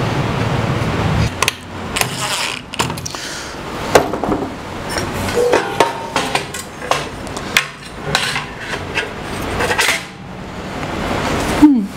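Metal fence rail parts and hardware being handled and set down on a table saw, giving a series of irregular clanks, clicks and knocks. A steady hiss stops about a second in.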